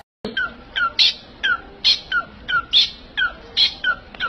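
Pet bird calling in a quick, even series of short chirps, each falling sharply in pitch, about three a second.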